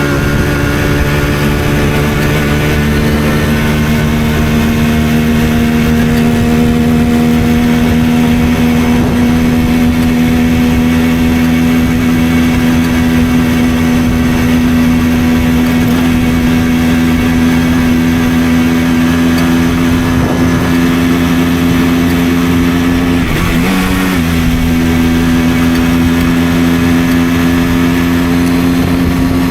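Simson moped's two-stroke single-cylinder engine running under way at a steady cruising speed, its note rising slowly. About 23 seconds in the note breaks briefly, then carries on steadily.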